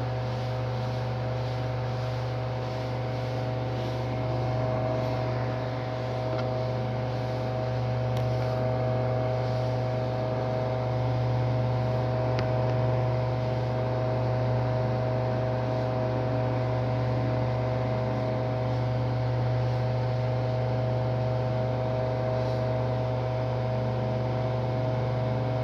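Mondial appliance's electric motor running with a steady, strong electrical hum, a deep drone plus a few higher steady tones. This is the noise the owner likens to a Ventisol fan.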